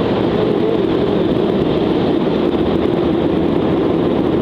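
Steady, loud motor-vehicle noise: engine and road sound with no breaks or changes.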